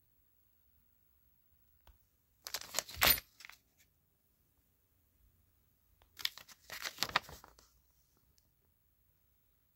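Rustling and crinkling of a plastic bag and paper being handled, in two bursts a few seconds apart.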